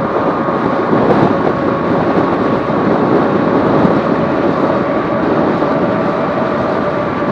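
Electric fat-tire bike riding along at steady speed: an even rush of tyre and wind noise with a faint steady whine underneath.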